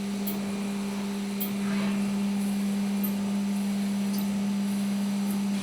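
CNC milling machine running steadily, giving an even low hum with faint high ticks now and then.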